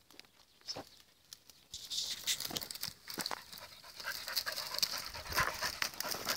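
A podenco hunting dog pushing through dense dry scrub: brittle brush crackling and rustling with sharp twig snaps, louder and busier after the first couple of seconds, with the dog panting.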